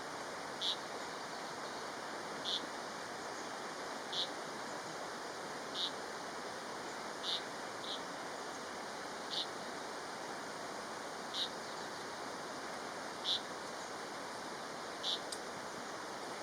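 Japanese leaf warbler giving short, sharp contact calls, about ten of them at an even pace of roughly one every two seconds, over a steady rushing background noise. The uploader felt the calls sounded like an alarm call, as if a nest were near.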